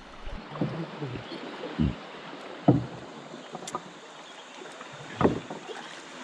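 Steady rush of river water, with a handful of short, irregular thumps.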